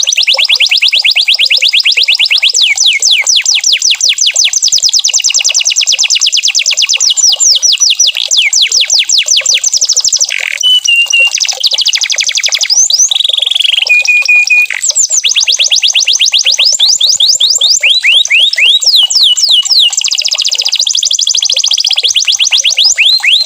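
Domestic canary singing a continuous song of rapid trills, many quick falling chirps a second, broken by a few short, steady whistled notes.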